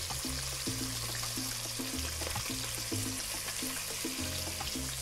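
Guanciale and crumbled sausage meat sizzling in their rendered fat in a frying pan, a steady hiss, under background music with a bass line whose notes change every second or so.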